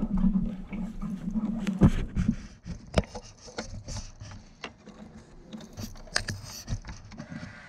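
Handling noise right at the microphone: clicks, knocks and rubbing as the rider's gear brushes past the camera, with sharp knocks about two, three and six seconds in. A low steady engine hum from a nearby idling motorcycle fades out a little over two seconds in.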